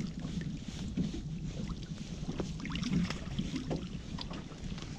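Wet drift net being hauled by hand over an open boat's gunwale, with scattered small knocks and rustles, over a steady low rumble of wind and water.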